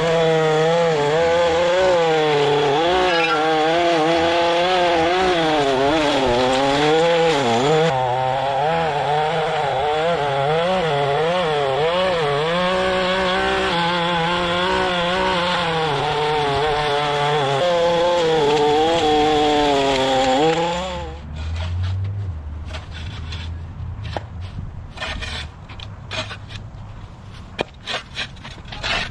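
A small high-revving engine on a handheld yard power tool runs hard for about twenty seconds, its pitch rising and falling continuously as the throttle and load change. It then drops to a lower, quieter running sound with scattered clicks and knocks.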